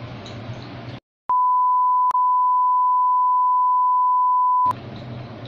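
A steady, pure electronic bleep tone lasting about three and a half seconds, cut in after a moment of dead silence, with a tiny click about a second into it. Low room noise comes before and after.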